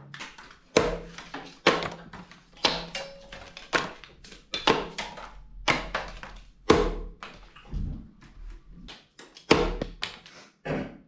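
Playing cards thrown one after another, each landing with a short light slap or tap on the table or floor, about a dozen in irregular succession.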